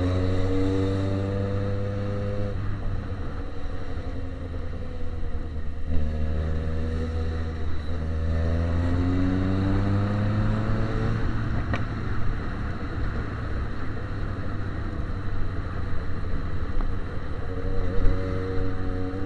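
Yamaha XJ6 inline-four engine with an open straight pipe, under way in stop-and-go riding: it rises in pitch through a few short bursts of throttle, drops back each time the throttle closes, runs lower for a while, then picks up again near the end.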